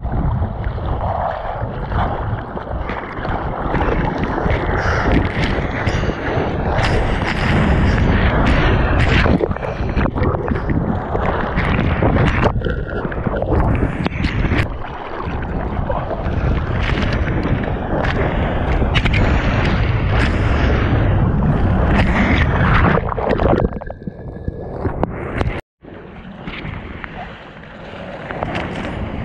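Ocean waves and whitewater rushing and splashing over a camera held at water level in the surf, loud and continuous with many sharp splashes. The sound cuts out for a moment about three-quarters of the way through.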